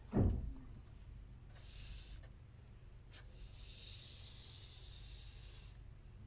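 A dull thump right at the start, then a pencil scratching along paper while tracing an outline: a short stroke about a second and a half in and a longer one from about three and a half seconds to nearly six.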